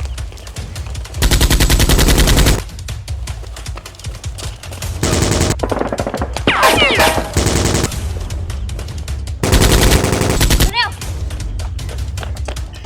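Several bursts of rapid automatic gunfire, each lasting about a second, with background music under them.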